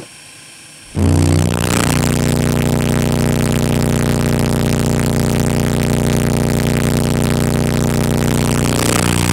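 Two Soundstream XXX 15-inch subwoofers powered by Power Acoustik EG1-10000D amplifiers play a 30 Hz test tone at full output for an amplifier clamp test. The tone starts about a second in and holds as one loud, steady note with a harsh buzz over it.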